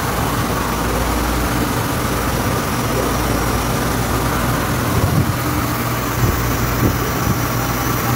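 Epson SureColor V7000 UV flatbed printer running with a steady mechanical hum and low drone while its print carriage sits over the bed with the UV lamp lit. A few brief knocks come a little past halfway.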